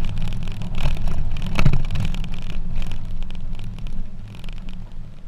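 Pickup truck moving slowly on a rough dirt road: a steady low engine and road rumble with small knocks and rattles from the body. It gets quieter near the end.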